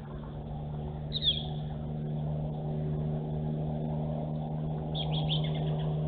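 Bald eagle giving high, thin calls: one short descending note about a second in, then a quick run of several notes near the end, a sitting eagle calling to its mate. A steady low hum runs underneath.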